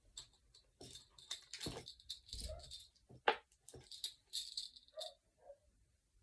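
Small plastic fidget toys being handled, giving a run of irregular clicks and rattles.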